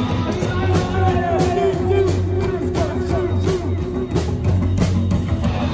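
Live rock band playing loud with drums keeping a steady beat under a heavy bass and wavering lead lines.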